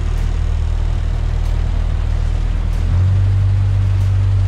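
River cruise boat's engine running steadily underway, a low drone that gets a little louder and stronger about three seconds in.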